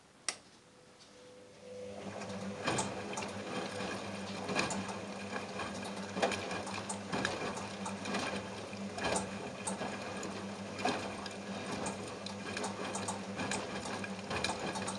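Front-loading washing machine's drum turning during the wash: a single click just after the start, then about two seconds in the motor starts and runs with a steady hum while water and the wet plush toy slosh and slap around the drum in irregular splashes.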